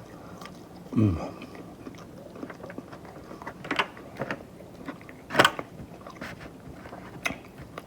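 Close-miked chewing and biting of crispy fried chicken, wet mouth noises with a few sharp crunches and clicks, the loudest about five and a half seconds in.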